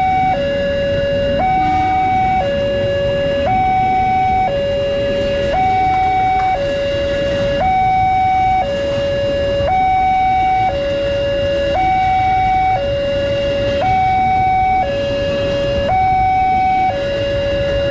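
Railway level-crossing warning alarm sounding steadily, switching between a higher and a lower tone about once a second. An electric commuter train runs past beneath it.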